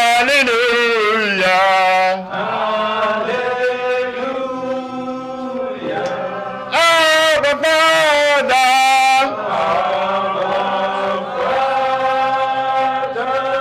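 Worship chanting: a voice sings long, wavering held notes over a steady sustained chord. The voice swells loudest at the start and again about seven seconds in.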